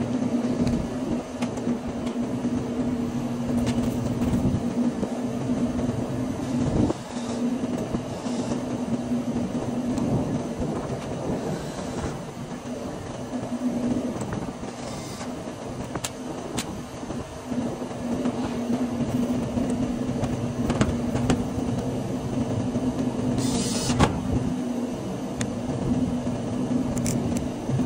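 Steady mechanical hum of rooftop air-conditioning equipment running, with a few short high-pitched hissing bursts over it.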